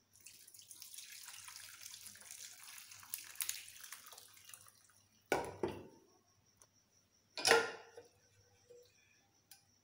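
Hot whey from milk curdled with lemon juice pouring and splashing through a cloth-lined strainer into the vessel below for about four and a half seconds, then two knocks, the second louder.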